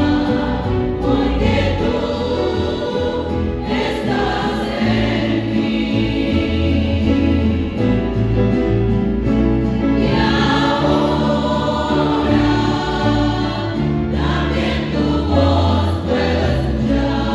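Women's choir singing a hymn together, with a low instrumental bass line sounding sustained notes underneath.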